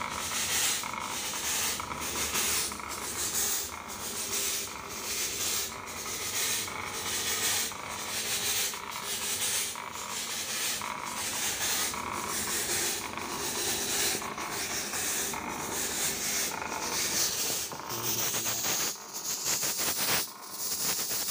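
Electric fogging machine spraying disinfectant mist: a steady hiss with a regular pulsing beat from the machine's fluid pump.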